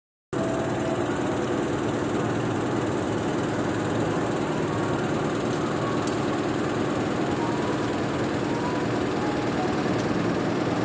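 An engine running steadily, cutting in suddenly just after the start.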